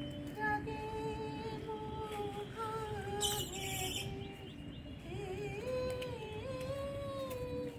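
A woman's voice humming a slow melody without words, holding long notes that glide up and down, with a brief high hiss about three seconds in.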